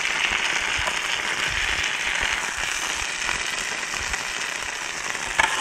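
Burgers sizzling and spitting in a frying pan over an alcohol burner: a steady crackling hiss that eases slightly. A few sharp knocks start near the end.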